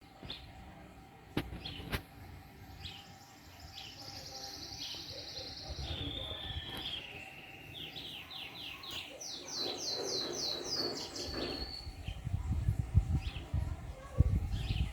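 Songbirds singing: high chirped phrases with fast runs of repeated notes that step down in pitch. Two sharp clicks come early, and a run of low thuds near the end is the loudest sound.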